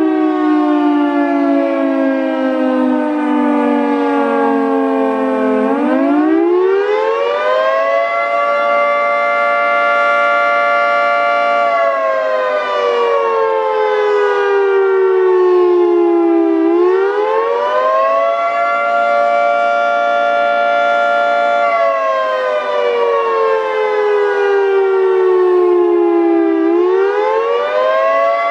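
Federal Signal 3T22 three-tone electromechanical siren sounding its attack signal: a chord of several tones in a slow wail, each cycle rising quickly, holding, then sliding down over about four seconds, about ten seconds a cycle.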